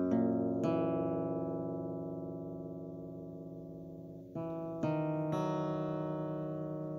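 Background music: a slow instrumental with chords struck a few seconds apart and left to ring out.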